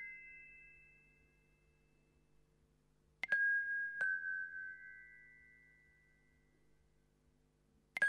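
Sparse soundtrack music: a few struck, bell-like notes that ring out and slowly fade, two of them about three seconds in and another right at the end, over a faint steady low drone.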